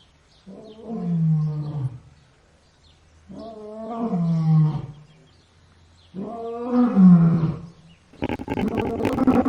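Lion roaring: three drawn-out calls of about a second and a half each, each falling in pitch at its end, then a louder, rougher, noisy call near the end.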